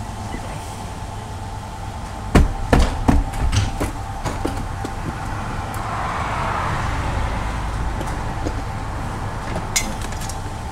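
A series of knocks and clunks, about two to four seconds in, as an empty refillable LPG gas bottle is handled and lifted in a motorhome's gas locker. Under them runs a steady low rumble and a faint hum.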